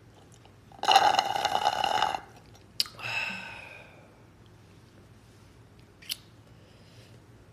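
Loud slurp through a plastic drinking straw from a glass mug of iced drink, lasting about a second and a half, then a short fading breath. A couple of small clicks follow.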